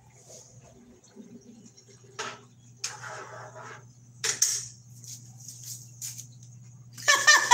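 Short rustles and a few light knocks as things are handled on a kitchen counter, over a steady low appliance hum. A woman's voice comes in, laughing, near the end.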